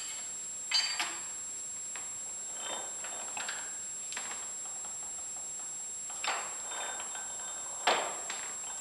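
Scattered metallic clinks and taps of a spanner and the metal change gears of an American Pacemaker lathe as a gear is fitted and its backlash set by hand. A sharper clink comes about a second in and another near the end, with lighter ticks between.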